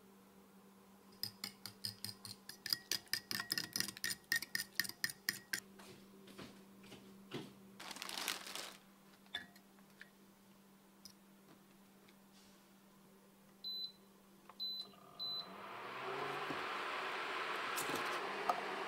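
A fork beating egg mixture in a glass bowl: quick metal-on-glass clinks, about four a second, for roughly four seconds, then a few lighter knocks. Near the end a portable induction cooktop gives three short beeps as its buttons are pressed, and its cooling fan starts up with a steady rushing noise.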